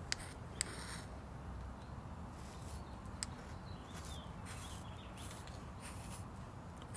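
Quiet handling sounds while working on the tire plug: a few light clicks near the start and about three seconds in, and short soft rustles, over a low steady hum.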